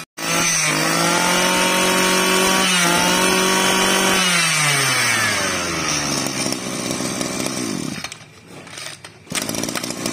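Small 23 cc two-stroke brush cutter engine (Maruyama) running fast and steady, then throttled back about four seconds in, its pitch falling to a lower running speed. It dips briefly around eight seconds in and picks up again near the end.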